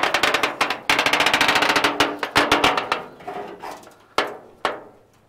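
Rusty sheet-metal hood side panel of a 1936 Ford truck being unlatched and swung up, with a loud rapid rattle for about three seconds, then two sharp knocks near the end.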